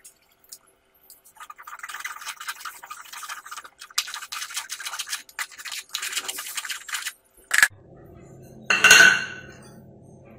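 Steel spoon scraping and pressing blended pineapple pulp against a fine steel-mesh strainer: a fast, scratchy rasping that starts about a second and a half in and stops about seven seconds in, followed by a sharp tap. Near the end, a loud, brief ringing clink.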